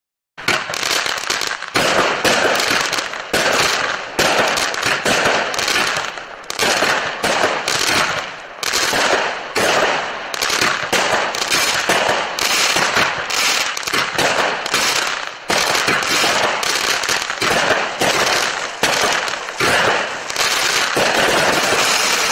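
Consumer firework shooting a rapid string of shots into the air, the bangs of launches and aerial bursts packed closely together. It starts a moment after a brief silence.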